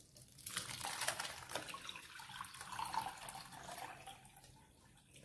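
Blended gooseberry drink pouring from a mixer jar through a fine mesh strainer, splashing and trickling into the bowl below; it starts about half a second in and dies away toward the end.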